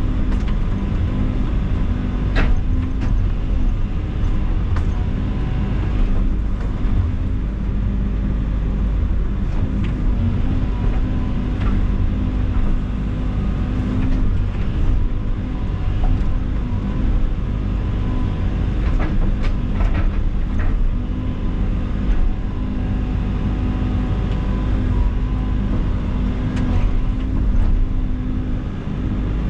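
Excavator's diesel engine running steadily under load. Scattered sharp cracks and knocks sound over the engine.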